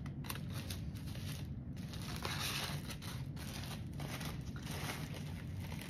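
Foil sandwich wrapper crinkling and tearing as it is peeled open by hand, a run of irregular crackles.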